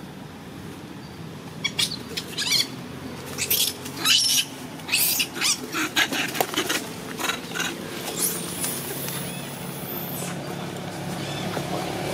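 Macaques squealing: a quick run of short, sharp high-pitched cries through the first half, then a thinner high whine.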